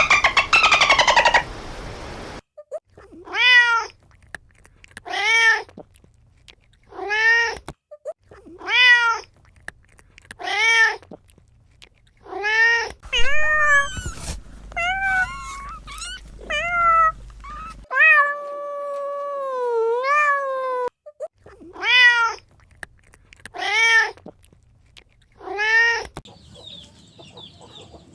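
Cats meowing over and over, roughly one meow every two seconds. Around the middle several meows overlap, and one long, drawn-out meow dips in pitch before the last few single meows. It opens with the last two seconds of a rougher, buzzy call, and faint high chirps come in near the end.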